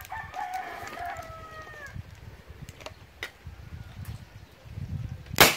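A rooster crows once in the first two seconds. About five and a half seconds in comes a single loud, sharp bang: the homemade LPG/butane-powered combustion shotgun firing.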